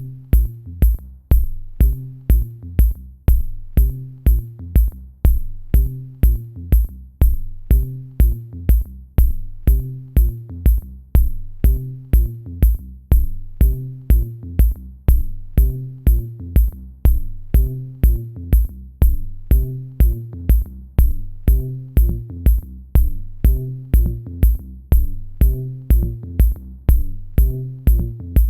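Electronic background music with a steady drum-machine kick and hi-hat beat, about two beats a second, over a repeating bass line.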